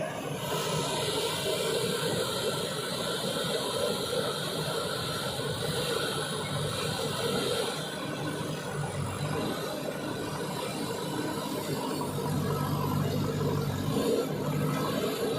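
JCB 3DX Super backhoe loader's diesel engine running steadily, with a higher hiss over it that fades about halfway through.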